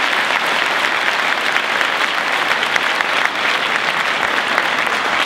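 Audience applauding steadily: a dense, even clapping from a large crowd.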